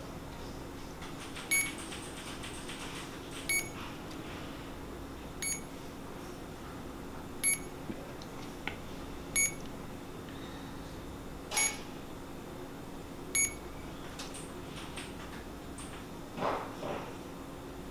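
CADD-Legacy 1 ambulatory infusion pump beeping: seven short, high beeps about two seconds apart, over a faint steady hum. A brief handling rustle follows near the end.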